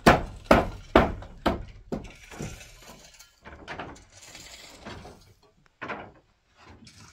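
A series of heavy knocks, about two a second at first, the loudest in the first two seconds, then fewer and fainter blows.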